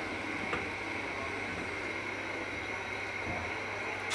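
A silicone spatula stirring thick sweet and sour sauce in a stainless steel saucepan as it comes to a boil on a gas stove, over a steady rushing noise. There is one light tap about half a second in.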